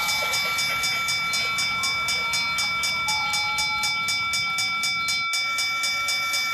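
Battery-powered toy diesel train running on plastic track: a steady rhythmic clicking, about five clicks a second, under steady high electronic tones. There is a brief dropout about five seconds in.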